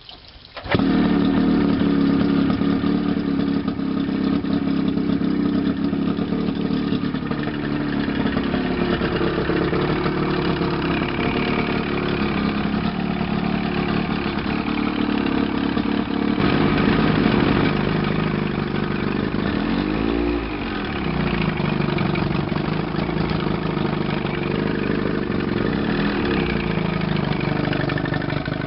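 Johnson 35hp outboard engine on a test stand starting suddenly under a second in, then running steadily. A short rise and fall in engine speed comes about two-thirds of the way through.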